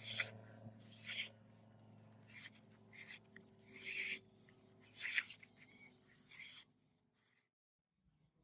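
Hand-worked scraping strokes, like a file or abrasive drawn across metal, about one a second at an uneven pace, over a low steady hum. The strokes and hum stop about seven seconds in.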